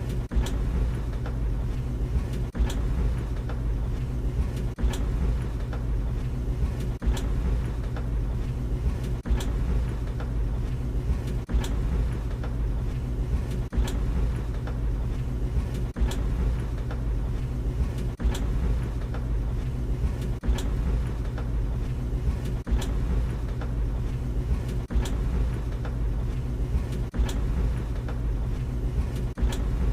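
Tumble dryer running: a steady low drum-and-motor hum, with a sharp knock about every two seconds and fainter knocks in between.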